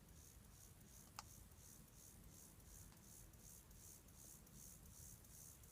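Faint, high-pitched insect chirping, an even run of about three pulses a second, with one sharp click about a second in.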